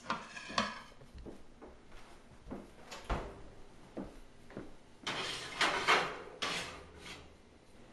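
A baking sheet going into a home oven: knocks and clunks of metal on the oven's wire rack, then two sliding scrapes of the pan across the rack about five seconds in.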